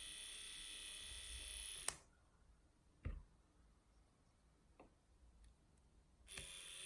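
A small electric whisk whipping cream buzzes steadily, then switches off with a click about two seconds in. A single knock follows a second later, then a few faint ticks, and the whisk starts buzzing again near the end.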